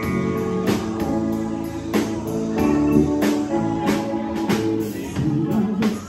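Live band playing: electric guitar, keyboard, bass and a drum kit keeping a steady beat, with a man singing into the microphone.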